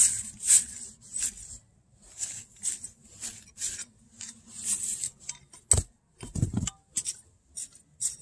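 Dry pine needle mulch rustling and crackling as it is pulled back over the soil with hand garden tools, in short repeated scrapes about twice a second, with a couple of duller knocks a little past halfway.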